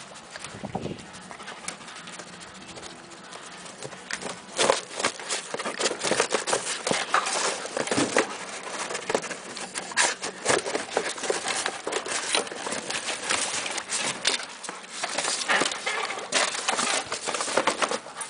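A dog scrambling over a pile of plastic pipes, a cardboard box and a plastic tank: irregular knocks, scrapes and rustling from its paws and the objects it shifts. The sound gets busier about four seconds in.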